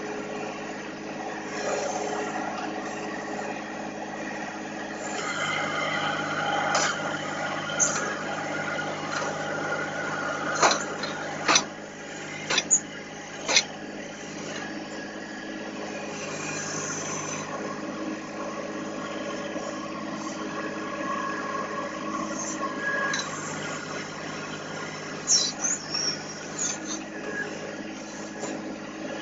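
Compact tractor's diesel engine running steadily, with several sharp metal knocks from the backhoe working.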